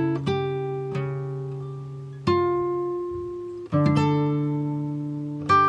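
Background music: an acoustic guitar picking slow notes and chords, each left to ring out and fade before the next.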